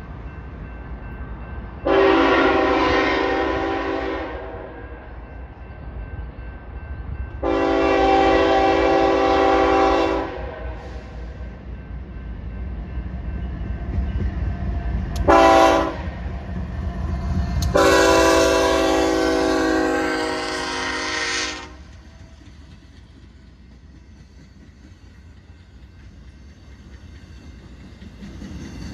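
Diesel freight locomotive's multi-chime air horn sounding four blasts, long, long, short, long: the standard grade-crossing warning. Under the horn runs the steady low rumble of the locomotive and train, which drops after the last blast and swells again near the end as the loaded flatcars roll past.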